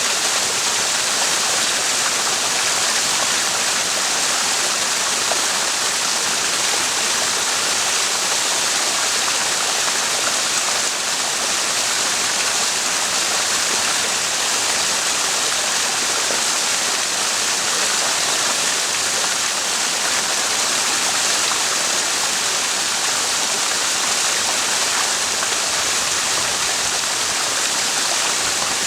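Clear mountain spring stream flowing and splashing steadily, a constant rushing hiss with no breaks.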